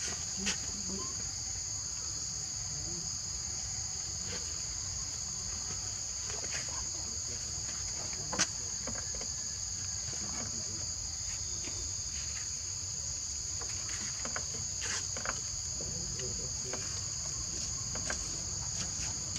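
Steady high-pitched insect chorus, a continuous two-toned drone, with a few light taps and clicks, the sharpest about eight seconds in.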